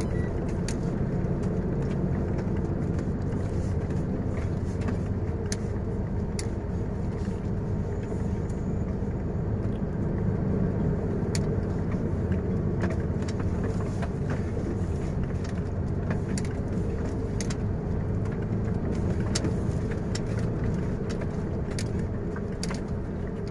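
Steady engine and road drone of a truck heard from inside its cab while driving, with occasional light clicks.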